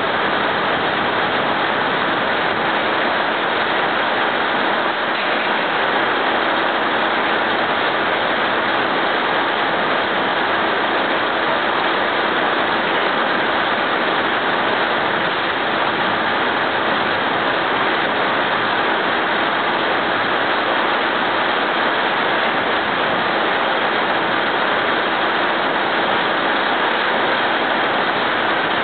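Sawmill headrig and its machinery running with a loud, steady, even noise that holds unchanged throughout.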